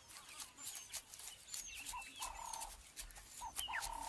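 Birds calling: a repeated call of a short note then a longer steady mid-pitched note, heard twice, with thin high falling whistles and scattered faint ticks.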